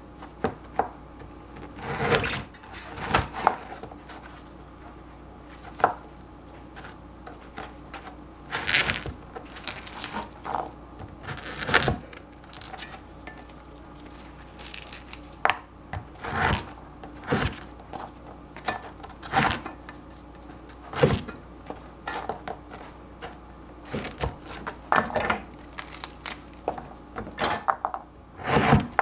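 Cleaver cutting crusty bread on a plastic cutting board: irregular sharp knocks as the blade chops through the crust and strikes the board, a couple of dozen in all at uneven spacing.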